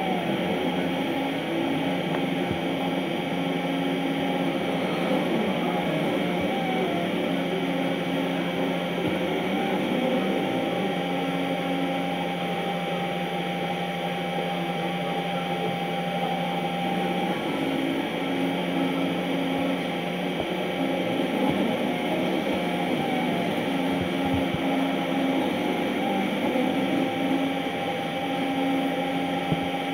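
3D printer running a print: its stepper motors hum at a few steady pitches that switch on and off every few seconds as the moves change, over the constant whir of its fans.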